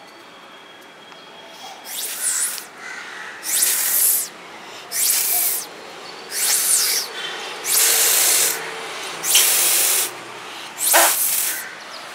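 Repeated hard puffs of breath blown through a homemade two-straw atomizer sprayer: about seven hissing blasts, each under a second, roughly one every second and a half, starting about two seconds in.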